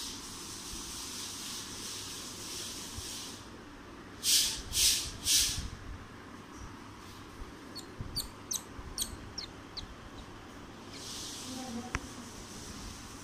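A baby palm squirrel squeaking: three loud, shrill squeals about four to five seconds in, then a quick run of short high chirps.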